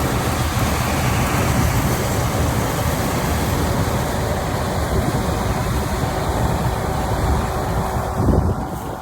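Engine of a rice-harvesting machine running steadily under load, with a brief louder surge near the end after which the sound eases a little.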